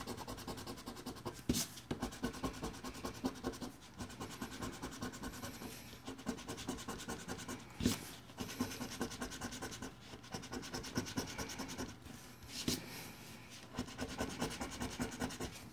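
A scratch-off lottery ticket being scratched, its coating scraped away in rapid, even strokes, with three louder clicks along the way.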